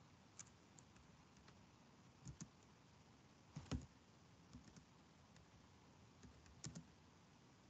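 Faint, scattered keystrokes on a computer keyboard: about a dozen irregular clicks, some in quick pairs, with pauses between them.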